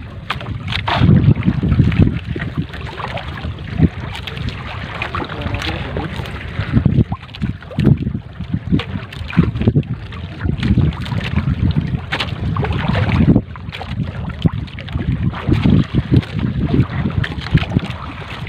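Water splashing and dripping off a triple fishing net as it is hauled by hand over the side of a boat, with short irregular splashes and slaps. Wind buffets the microphone with a gusty low rumble.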